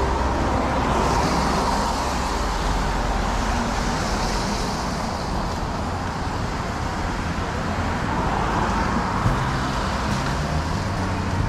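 Road traffic on a rain-wet street, a steady wash of car noise with tyre hiss on wet asphalt that swells and fades between about one and five seconds in.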